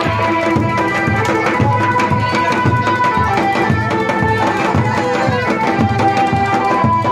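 Loud drum-led traditional music: a steady drum beat of about two strokes a second under a melody of long held notes that bend now and then.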